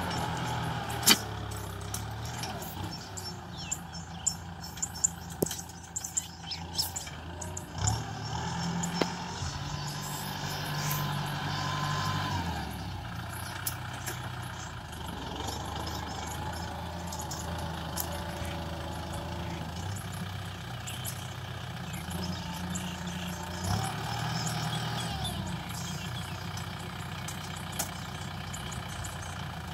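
Kubota M6040SU tractor's four-cylinder diesel engine running under load as it pulls a disc plough through the soil. The engine note rises and falls a few times, and there are scattered sharp clicks, most of them in the first third.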